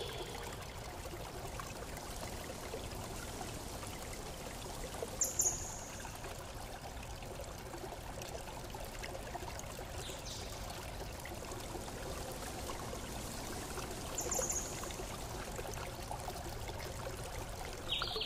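Steady running-water sound, an even rushing like a stream or a running tap, with two brief, louder high-pitched sounds about five and fourteen seconds in.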